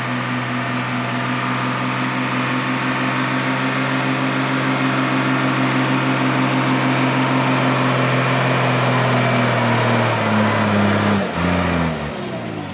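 Mercedes-Benz Unimog camper truck's diesel engine running steadily as it drives up across sand, growing louder as it approaches. About ten seconds in, the engine note drops and wavers as the truck slows and pulls up, then it eases off near the end.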